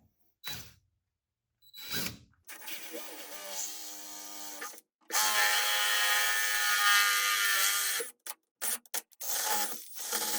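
DeWalt 20-volt cordless drill running in two bursts, a shorter quieter one and then a longer, louder one of about three seconds, as it drills a 1/8-inch hole through a fiberglass hood; a few short clicks follow near the end.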